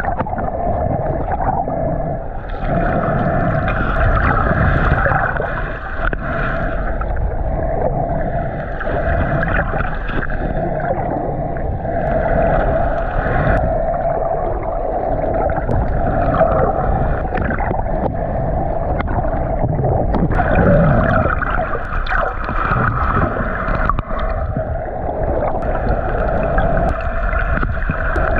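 Underwater sound picked up through an action camera's waterproof housing: a steady muffled hum with water rushing and gurgling underneath, its higher tones fading in and out every few seconds.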